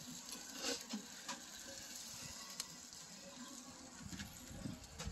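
Faint sizzling from a charcoal grill, with a few light clicks of a metal fork and knife against the grate and the roast chicken as it is lifted off.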